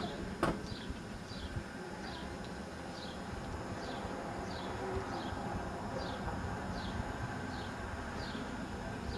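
Open-top double-deck electric tram approaching slowly with a low, steady rumble, while a bird repeats a short falling chirp a little under twice a second. A single sharp click comes about half a second in.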